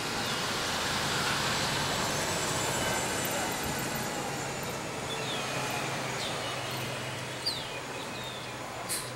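City transit bus driving away from the stop, its engine a steady low hum that slowly fades as it recedes, with a few birds chirping briefly.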